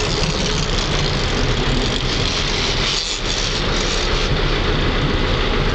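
Boat engine running steadily under a loud rush of wind and water, with a low hum beneath it.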